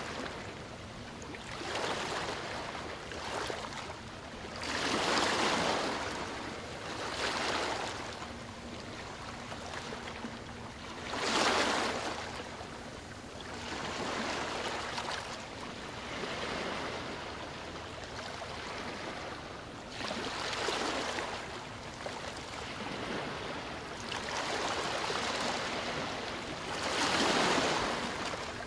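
Waves washing onto the riverbank: a rushing noise that swells and fades in surges every few seconds, over a faint steady low hum.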